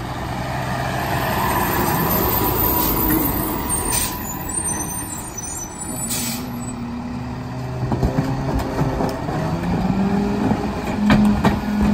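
Heil PowerTrack rear-loader garbage truck on a Freightliner M2 chassis, its diesel engine running, with two short air-brake hisses about four and six seconds in. Near the end the engine speeds up and holds a higher pitch while a trash cart is tipped into the hopper, with a few sharp knocks.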